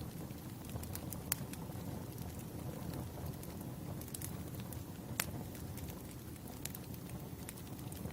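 Firewood burning: a steady low rumble of the fire with scattered sharp crackles and pops, the loudest about a second and five seconds in.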